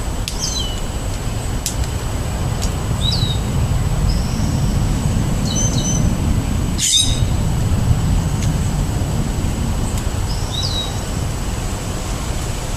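Wind buffeting the microphone with a steady low rumble, while a songbird calls short, high, descending notes every two to three seconds. One brief noisy sound comes about halfway through.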